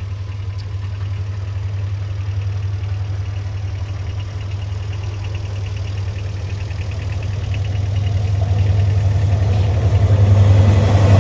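Diesel locomotive engine running as it hauls an express train toward the crossing: a steady low drone that grows louder over the last few seconds as the locomotive draws near.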